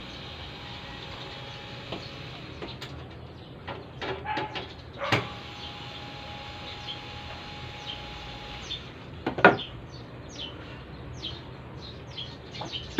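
Cordless drill motor whining steadily as it backs screws out of a metal amplifier cover: one run of about two seconds, then a longer one of about three seconds starting about five seconds in. Sharp knocks and clunks fall between the runs, the loudest about nine seconds in. Birds chirp in the background.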